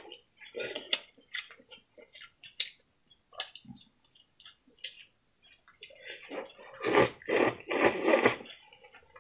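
A person eating rice noodles: soft chewing and small wet mouth clicks, then a run of louder slurps over the last few seconds as the noodles are sucked in.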